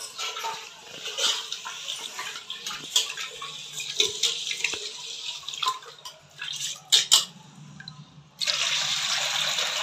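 Rice being washed by hand in an aluminium pot: water sloshing and splashing, with two sharp knocks about seven seconds in. About eight seconds in, a steady pour starts as the rice water is tipped from one aluminium pot into another.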